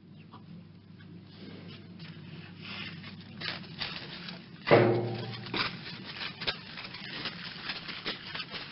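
Rhinoceros recording: a steady low hum under irregular clicking and rustling, with one loud, low call about five seconds in that fades over about a second.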